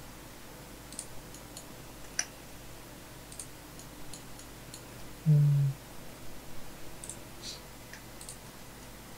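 Scattered light clicks of a computer mouse and keyboard keys, a few per second at irregular moments. About five seconds in, a brief low hum is the loudest sound.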